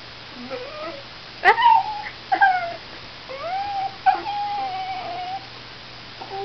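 West Highland white terrier whining in about five short, pitch-sliding cries, the last drawn out for over a second: crying to be let up onto a bed she is too short to jump onto.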